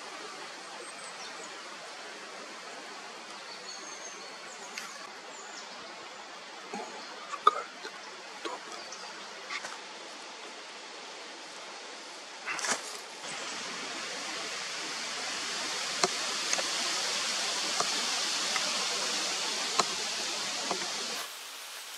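Steady outdoor forest ambience: a soft hiss with scattered faint crackles and ticks, like leaves and twigs. The hiss grows louder about thirteen and a half seconds in and drops back shortly before the end.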